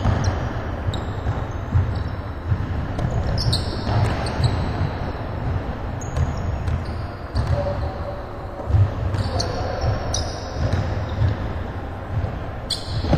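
Basketball game on a hardwood gym floor: the ball bouncing and thudding footsteps throughout, with several short, high sneaker squeaks, echoing in a large hall.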